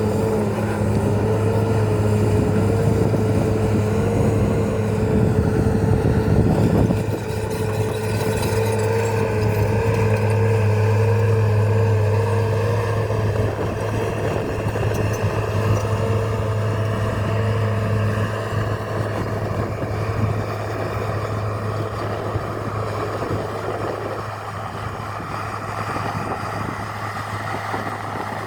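Komatsu D51EX crawler bulldozer's diesel engine running steadily under load while the machine works, with a wavering whine over the engine hum. The sound eases off somewhat near the end.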